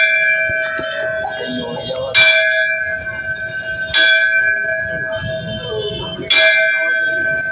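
A temple bell struck four times, about two seconds apart, each stroke ringing on into the next with the same pitch. A murmur of crowd voices lies under it.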